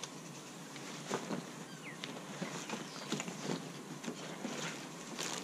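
Quiet rustling and soft knocks of camping gear being handled, as a rucksack is rummaged through.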